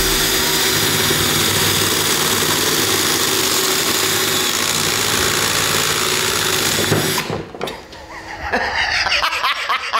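Cordless drill running at full speed, spinning a fidget spinner fitted with long blades while an apple is pushed into them. The steady whirr stops suddenly about seven seconds in.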